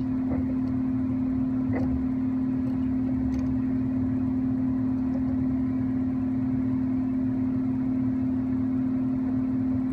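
Steady machine hum with one constant tone and low rumble, and a few faint clicks.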